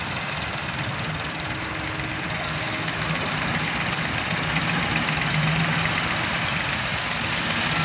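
Diesel engines running steadily: a wheeled excavator working as it loads soil into a trailer, with a Massey Ferguson tractor idling alongside. The engine noise grows a little louder a few seconds in.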